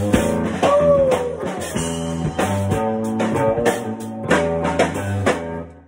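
Rock band playing electric guitar over a drum kit, with a note sliding down about a second in; the music fades out at the end.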